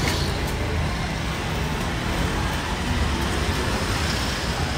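Steady road traffic noise of a city street, cars going by.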